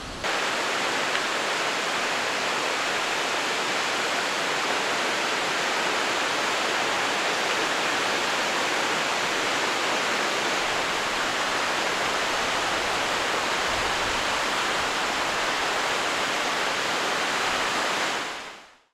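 Nachi Falls, a tall waterfall, giving a steady, even rush of falling water that fades out near the end.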